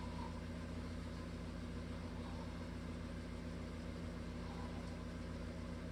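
A steady low hum with a faint hiss over it.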